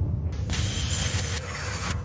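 Cinematic sound effects: a deep steady rumble, with a loud hissing rush that starts about half a second in and cuts off just before the end.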